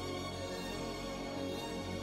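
Background film-score music with long held notes at an even level.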